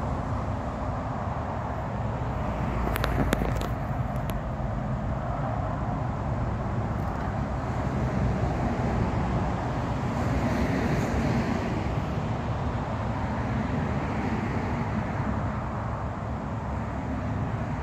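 Distant diesel freight locomotive approaching slowly, a steady low engine drone, with a few sharp clicks about three seconds in.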